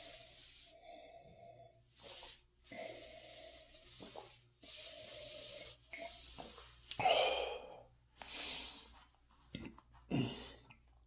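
Heavy breathing of a man stuffed full from eating: a run of deep breaths one after another, with louder ones about seven seconds in and again about ten seconds in.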